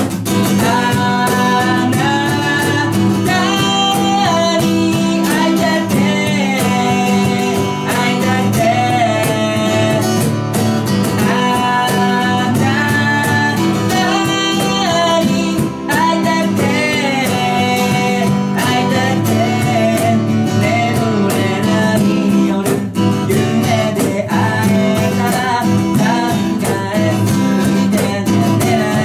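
Live acoustic performance: a man singing over a strummed acoustic guitar, with a cajon keeping the beat.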